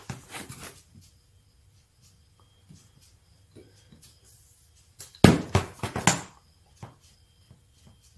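Knocks and clatter of metal drill-press parts being handled while the machine is taken apart: a few light clicks near the start, then a loud burst of knocks about five seconds in lasting around a second.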